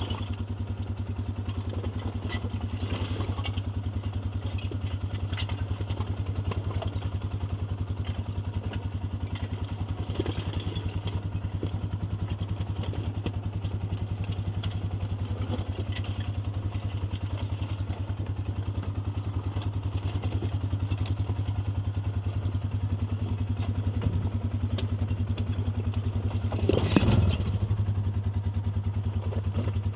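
ATV engine running steadily at low revs while the quad crawls over rough ground, with scattered clatter and knocks from the chassis. A louder clattering knock stands out about 27 seconds in.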